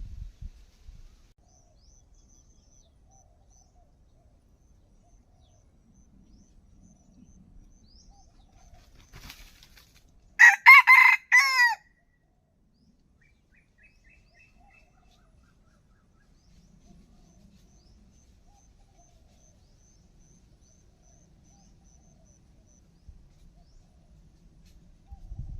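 A rooster crows once, loud and close, about ten seconds in: a single broken crow of a second or so. Around it are only faint high chirps and low rustling.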